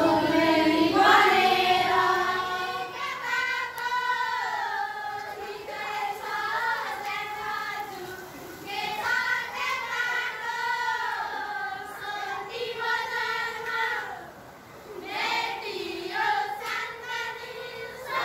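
A group of schoolchildren singing a song together in unison, holding long notes with short pauses between phrases.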